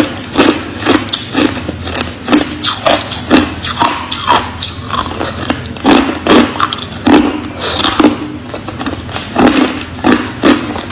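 Crushed ice crunching between the teeth, close up, in quick repeated bites about two to three a second.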